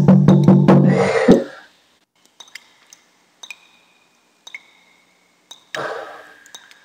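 Background film score: low, pulsing notes that stop about a second and a half in, then sparse faint high pings, and a louder swell near the end that fades out.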